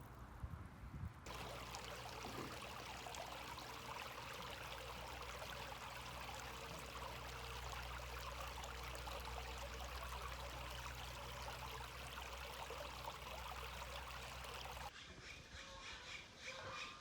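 Small stream of water trickling and flowing steadily. The recording changes about a second in, and again near the end to a different sound with a rhythmic pattern.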